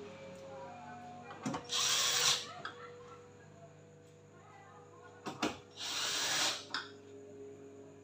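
Cordless drill-driver running in two short bursts, each under a second and about four seconds apart, each starting with a click, as it drives screws into the back cover of a television.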